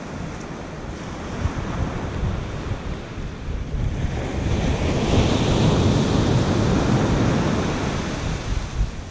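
Ocean surf washing onto a sandy beach, swelling to its loudest about halfway through and easing off near the end, with wind rumbling on the microphone.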